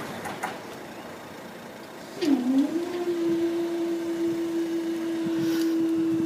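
Level crossing barrier mechanism starting up about two seconds in, dipping briefly in pitch, then running with a steady hum as the barrier booms lift.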